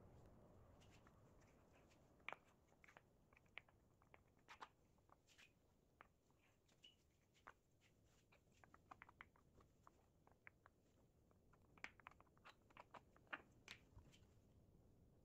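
Faint, scattered small clicks and light taps from glue-covered oak boards being handled and the glue being spread.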